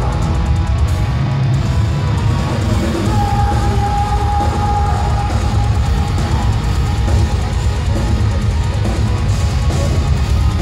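Post-black metal band playing live: distorted electric guitars and drum kit over a heavy, dense low end. One high note is held for a few seconds, starting about three seconds in.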